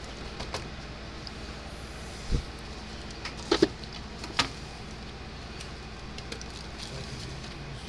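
Handling noise of tools on a wooden workbench: a dull thump about two seconds in, then a few sharp clicks and knocks as the multimeter probes and a soldering iron are moved and picked up, over a steady low hum.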